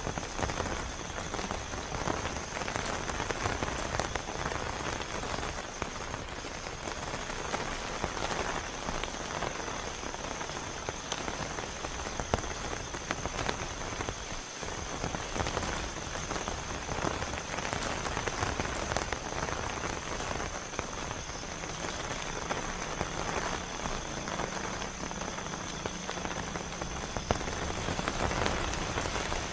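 Heavy rain falling steadily, with many individual drops striking close by and a thin, steady high tone running beneath it.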